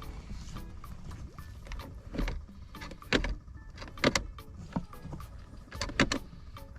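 Honda Accord automatic gear shifter being worked after its shift-button repair: a handful of sharp plastic-and-metal clicks and clacks, the loudest about three, four and six seconds in.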